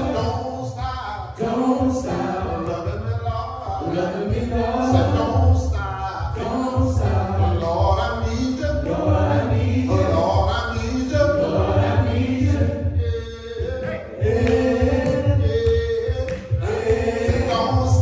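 Gospel praise team singing together, with a male lead voice out in front of the group's harmonies over a steady low bass.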